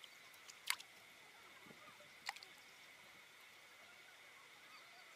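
Two small, sharp water splashes about a second and a half apart, against near silence.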